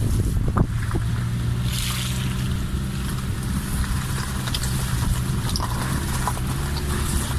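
A steady low engine hum under a constant wash of wind and rushing-water noise.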